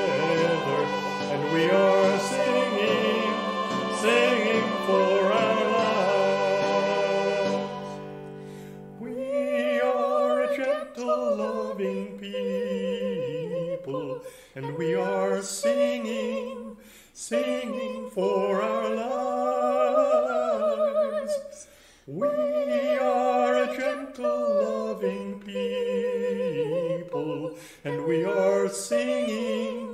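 Hymn singing. A full accompanied chord is held and fades out about eight seconds in. After that a single voice sings on alone in phrases, with a wide vibrato.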